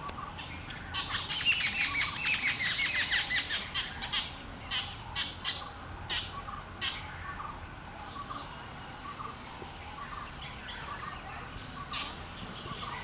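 Birds chirping: a fast run of high, quickly falling chirps starting about a second in and lasting a couple of seconds, then scattered single chirps, over a soft call that repeats about twice a second.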